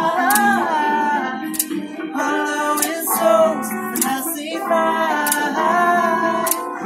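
A woman singing held, bending notes over an electric guitar played through a small built-in amplifier, with chords struck about once a second.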